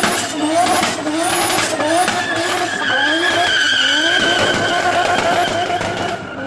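Turbocharged car engine revved in quick rising blips about twice a second, then a steady high-pitched whine for a few seconds, with a crackling chatter throughout.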